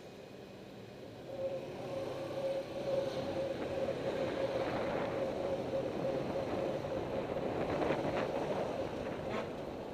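Car in motion with a failed front wheel bearing: a steady drone over tyre and road noise, getting louder about a second and a half in.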